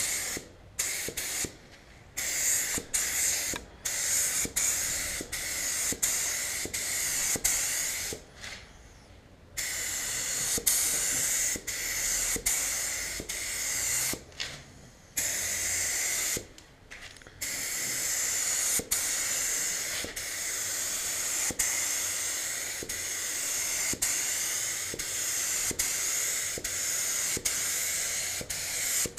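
Gravity-feed paint spray gun hissing steadily as it lays a light, dusty first coat of base paint on a car panel. The hiss cuts out briefly several times between passes.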